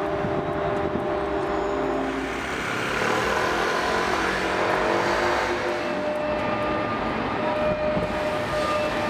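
Steady city street traffic noise: the mixed hiss and engine hum of passing vehicles.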